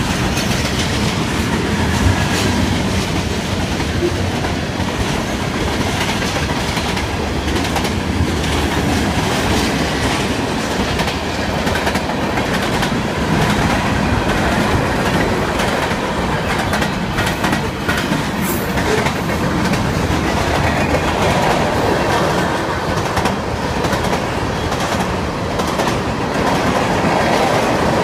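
Norfolk Southern mixed freight train cars rolling past close by: a steady loud rumble of steel wheels on rail, with a running clickety-clack of wheels over rail joints.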